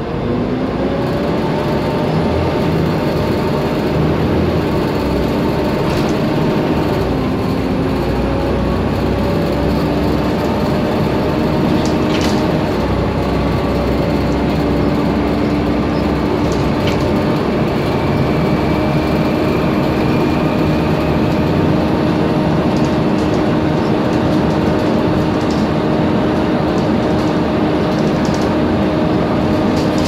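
Volvo B7TL double-decker bus heard from inside, driving along with a loud hoover-like whine that rises in pitch at the start, dips and picks up again about eight seconds in, then holds steady. A few rattles and knocks from the bodywork.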